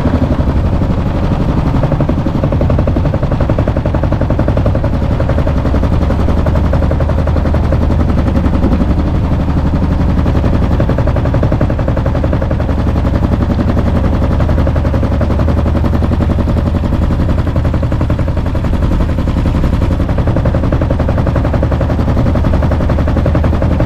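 Predator 224 cc single-cylinder engine of a Swamp Runner mud motor running steadily with the boat under way, a rapid even exhaust putter.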